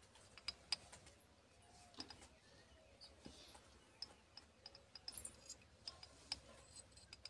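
Faint, irregular small clicks and ticks: a thin metal rod tapping and scraping against the glass of a bottle while miniature wooden cot parts are worked inside it.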